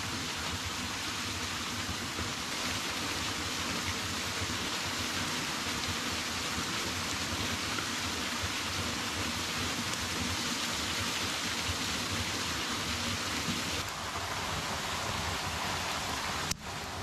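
Small waterfall rushing steadily, an even hiss of falling water, broken by a short click near the end.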